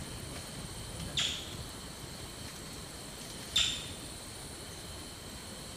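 Forest ambience: a steady high insect drone, broken twice by a short, sharp high chirp that starts suddenly and fades quickly.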